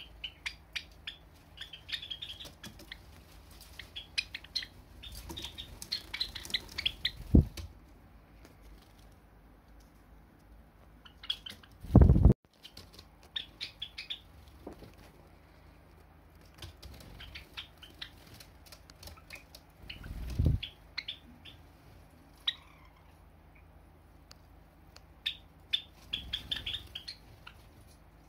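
Pet Java sparrows calling in quick runs of short, high chips, with spells of wing flapping as birds fly between perches. The loudest flutter comes about twelve seconds in, with smaller ones around seven and twenty seconds.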